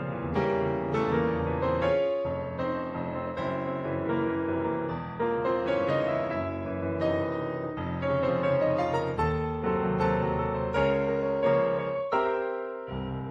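Solo piano music, a run of struck notes and chords at an even pace, in an old silent-film style.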